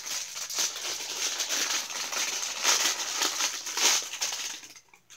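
Thin clear plastic bag crinkling and rustling as hands unwrap and handle it, stopping shortly before the end.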